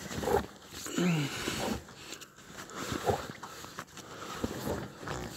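A dog making short, irregular vocal noises, a few of them brief falling whines.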